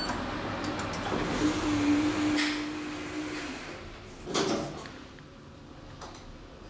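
Elevator door operator running with a steady hum, then the sliding car doors closing with a single thud about four seconds in.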